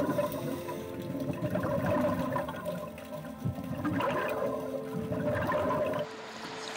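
Underwater rushing and bubbling water from a diver's ascent. It gives way about six seconds in to quieter splashing at the surface.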